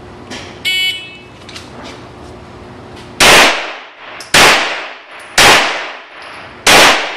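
Electronic shot timer's start beep about a second in. Then four loud gunshots, about a second apart, each ringing briefly.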